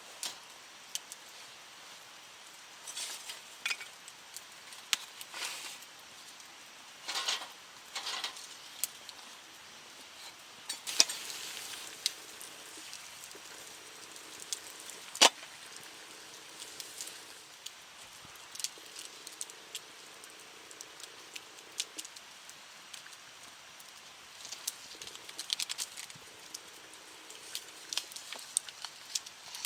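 Scattered light clicks, knocks and short rustles at an irregular pace, the sharpest click about halfway through. A faint low hum comes and goes in the second half.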